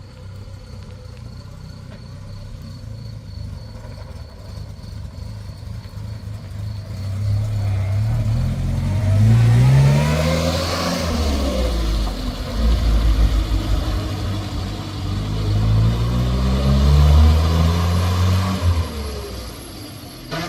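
Small car engine accelerating twice, its note rising each time, with the car loudest about ten seconds in and again near the end as it goes by. The car is the restored Zastava 750 (Fiat 600) on its test drive.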